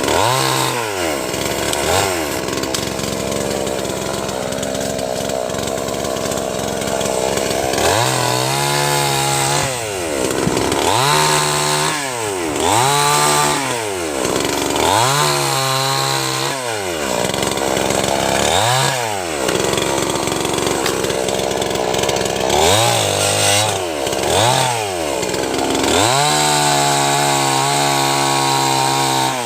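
Chainsaw engine revved repeatedly to high speed and let drop back to idle, about ten times. Each burst holds high revs for a second or two, and the longest comes near the end.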